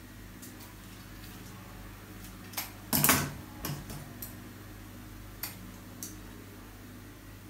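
Light clicks and knocks of flower stems and tools being handled while eucalyptus stems are worked into a flower arrangement, with a louder clatter about three seconds in, over a steady low hum.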